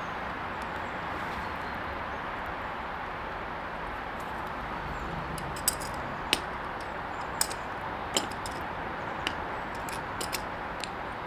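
Steady rushing hiss of a gas-fired melting furnace's burner, with a few sharp metallic clicks scattered through the second half.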